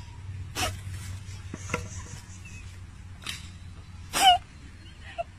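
Dog barking in a few short, sharp barks, the loudest about four seconds in.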